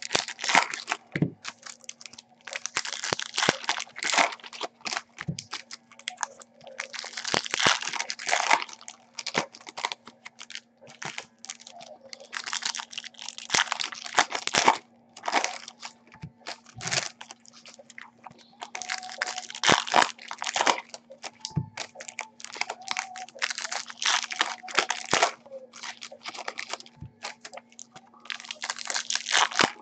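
Foil-wrapped Topps Platinum trading-card packs being torn open and their wrappers crinkled by hand, in irregular bursts with short pauses, over a faint steady low hum.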